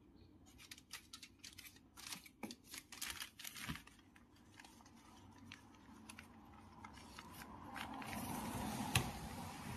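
Aluminium foil tape being handled: faint crinkling, tearing and small taps, then a soft rustling that swells near the end.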